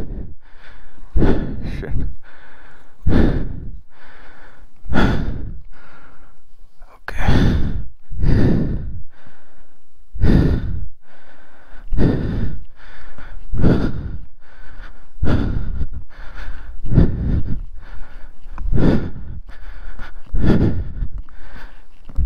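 A person breathing hard close to the microphone: heavy, blowing breaths about one every two seconds.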